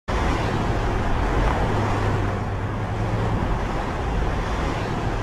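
Steady road traffic noise with a low, even hum.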